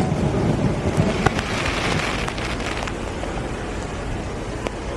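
Fireworks going off: a few sharp bangs from bursting shells, with a spell of crackling about two seconds in, over a steady hiss of rain.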